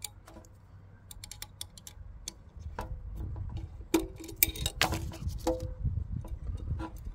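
Small clicks and metallic ticks of an Allen key fitting into and turning the screws on a reversing camera's hood. The loudest cluster of clicks, with a brief metallic ring, comes about four to five seconds in, over a low rumble that starts about three seconds in.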